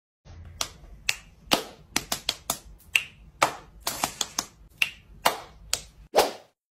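A string of crisp finger snaps at an uneven rhythm, about fifteen in six seconds, ending with a louder, duller hit.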